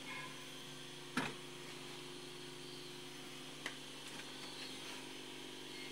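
A faint, steady mechanical hum, like a motor running, with two sharp knocks: a louder one about a second in and a smaller one a few seconds later.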